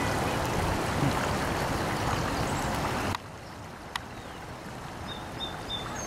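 Steady outdoor background noise, an even hiss with no distinct source, that drops abruptly to a lower level about three seconds in. A single sharp click comes about a second after the drop.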